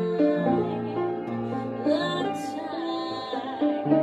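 A woman singing a slow ballad, holding and bending the word "time" over sustained notes of her instrumental accompaniment.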